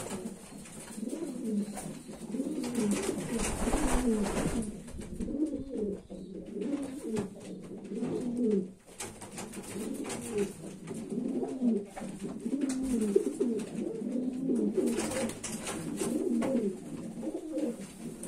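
Racing pigeons cooing, a steady run of low coos that rise and fall one after another.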